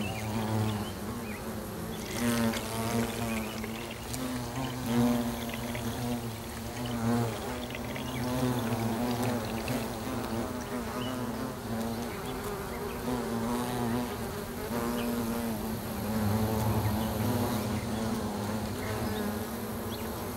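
Honeybees buzzing close by in numbers: a steady drone with wavering pitch that swells as single bees fly near.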